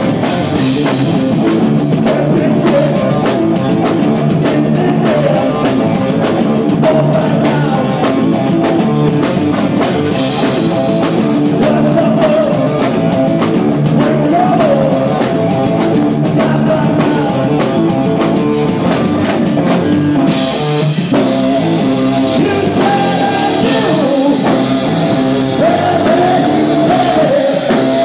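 A rock band playing live and loud: electric guitar, bass guitar and a drum kit with frequent cymbal hits, recorded from the crowd. The cymbals stop for a moment about twenty seconds in, then the band comes back in.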